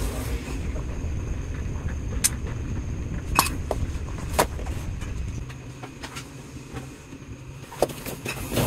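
A few sharp clicks and clacks of a caulking gun and a tube of caulk being handled and loaded, over a low steady rumble that drops away about halfway through.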